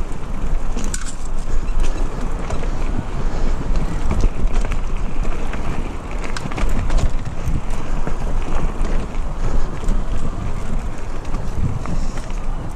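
Mountain bike riding a dirt forest singletrack: steady wind buffeting on the microphone over the tyres' rumble, with frequent short rattles and clicks from the bike over the rough ground.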